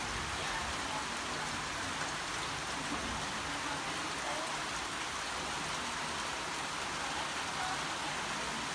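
Steady rain falling onto a puddle and wet ground, an even, unbroken wash of sound.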